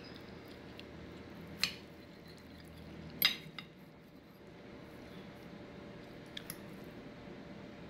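A metal fork clinking against a ceramic plate while cutting food, about five sharp clinks with the loudest a little after three seconds in, over a faint steady hum.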